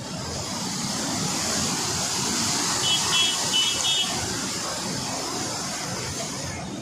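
A vehicle passing close by, its rushing noise swelling to a peak about halfway and fading again, with four short high beeps in quick succession near the middle.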